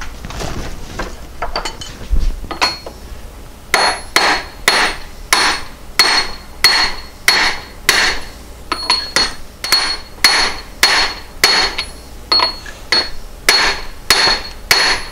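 Hammer blows on the steel drive flange of a VW 020 transmission, driving it onto its shaft. After a few light taps, a steady run of sharp strikes, a little under two a second, begins about four seconds in, each with a short metallic ring.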